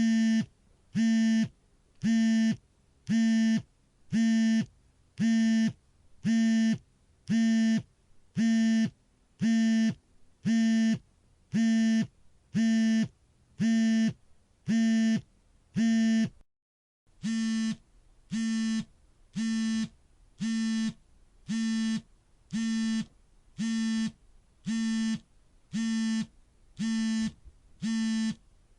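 Smartphone vibrating for an alarm in silent mode: a low buzz in pulses about half a second long, roughly one a second. The pulses break off briefly a little past halfway, then carry on slightly quieter.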